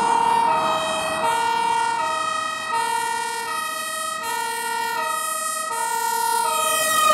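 Dutch fire engine's two-tone siren, alternating between a lower and a higher note about every three-quarters of a second as the truck approaches on an emergency run.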